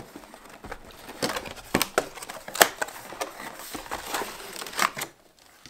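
A cardboard box being opened and a vacuum-bagged filament spool lifted out: irregular clicks, scrapes and crinkles of cardboard flaps and plastic wrap, with a few sharper snaps, quieter near the end.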